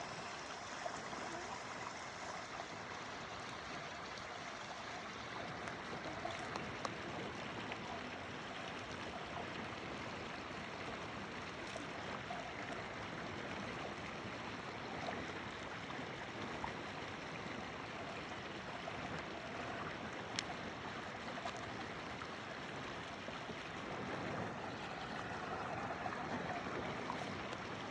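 Stream water flowing steadily, with a few faint clicks.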